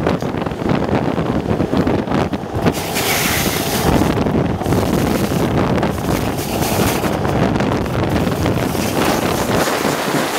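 Wind rushing over the microphone at speed, over the steady rumble of longboard wheels rolling fast on asphalt.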